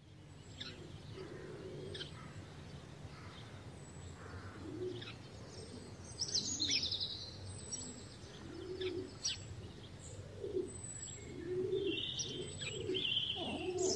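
Birds chirping and calling outdoors, with short high chirps throughout and repeated low cooing calls that come more often in the second half, over a steady low background hum.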